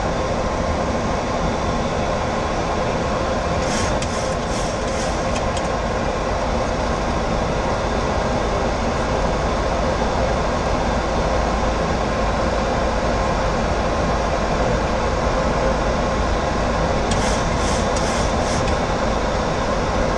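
Steady cabin noise on a Boeing 737-800 flight deck in descent: a continuous rush of airflow over the cockpit with a low engine rumble and a faint hum. Two brief clusters of light clicks, about four seconds in and again late on.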